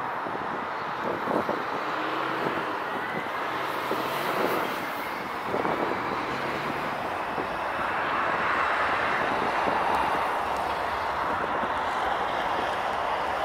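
Bombardier CRJ regional jet's rear-mounted General Electric CF34 turbofans running as it rolls down the runway, a steady jet whine and rush that swells about eight seconds in as the aircraft moves off.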